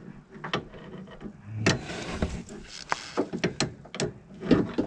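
Irregular metallic clicks, knocks and a short scrape of an adjustable spanner being handled and worked against the inner track rod end nut on a van's steering rack.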